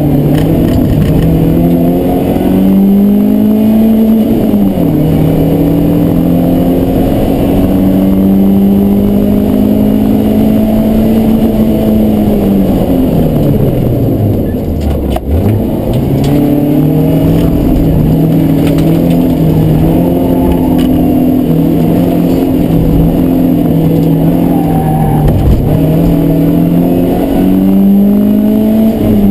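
BMW E36 318is's four-cylinder engine at high revs, heard from inside the cabin. The note climbs and then drops at a gear change about four seconds in, and holds high for several seconds. Around halfway it falls steeply almost to idle, then climbs and holds again, with another rise and drop near the end.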